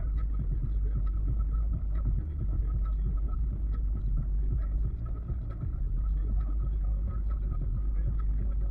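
A car driving at highway speed: a steady low rumble of road and engine noise, with a faint steady whine above it.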